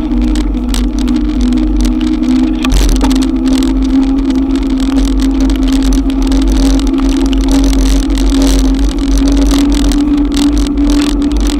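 Electric bike ridden through heavy rain: a steady motor whine that shifts pitch slightly about three seconds in, over a constant low rumble and a crackle of rain and spray.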